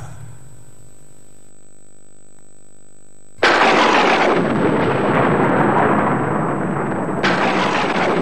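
A low, steady hum, then about three and a half seconds in a sudden loud thunderclap that rumbles on and slowly fades, with a second crack of thunder near the end.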